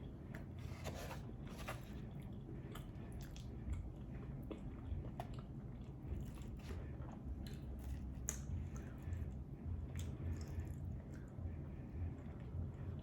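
Close-miked chewing and wet mouth sounds of someone eating soft brisket and mac and cheese, with irregular small smacks and clicks over a low steady hum.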